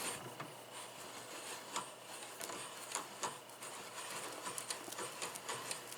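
Bison-Bial bench vise being worked by hand, faint irregular metal clicks and ticks from the handle and screw as the movable jaw travels.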